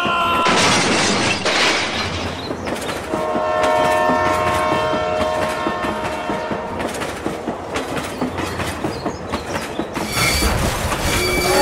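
Train sounds for a toy steam locomotive: a burst of hiss, then a steady horn blast held for about four seconds over quick repeated clicking of wheels on track. A low rumble comes in near the end.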